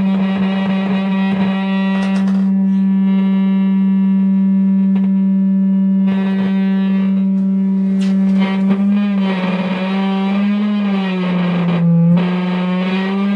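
A steady test tone of about 200 Hz runs through a Fender Blues Deluxe Reissue guitar amplifier. A harsh buzz sits on the tone, comes and goes, and is joined by a few clicks early on: this is the amp's intermittent buzz fault, traced to a broken wire in its ribbon cable. Past the middle the tone wavers and its pitch slides down slightly.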